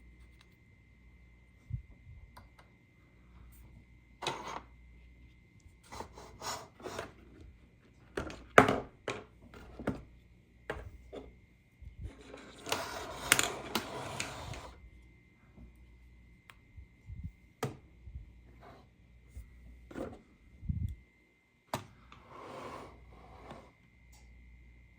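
Plastic toy pieces being handled: scattered clicks and knocks, with a denser rattling stretch of about two seconds around the middle. A faint steady high tone sits underneath.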